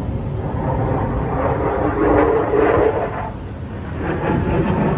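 Kamov Ka-52 attack helicopter in flight, its coaxial rotors and turbine engines running, swelling louder about two seconds in, easing off, then building again near the end.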